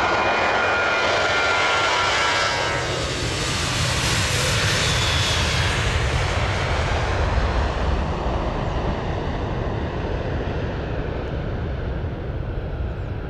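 Boeing 737-800's CFM56 jet engines at takeoff power passing by. The high fan whine drops in pitch and dies away in the first few seconds, leaving a deep rumble that fades slowly as the jet climbs away.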